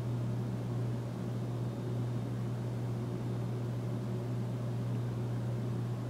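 Steady low hum with a soft hiss above it, unchanging throughout: background room tone.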